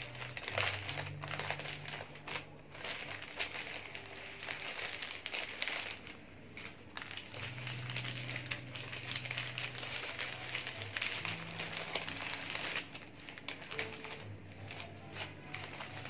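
Bouquet wrapping paper crinkling and rustling as hands fold and gather it around a bunch of wax roses, with many small crackles of the paper and mesh net, easing off briefly a couple of times.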